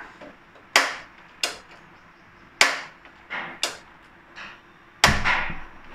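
A gas stove's spark igniter clicking about seven times at uneven intervals as the burner is lit. The loudest click, about five seconds in, comes with a low thud.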